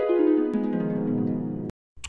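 Musical sound effect: a bright tone gliding steadily downward in pitch, then cutting off suddenly shortly before the end.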